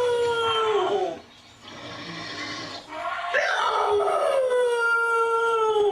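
A dog howling: two long, drawn-out howls. The first slides down and ends about a second in. The second swoops up about three seconds in, holds, and drops in pitch at the end.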